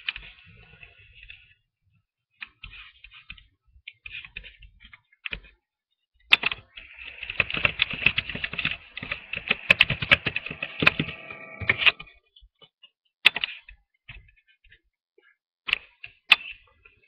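Typing on a computer keyboard close to the microphone: scattered key clicks, then a dense run of typing from about six seconds in until about twelve seconds, then a few more taps.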